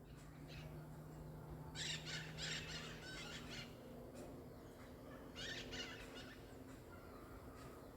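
Bird calling: two bouts of quick repeated harsh notes, about two seconds in and again around five and a half seconds.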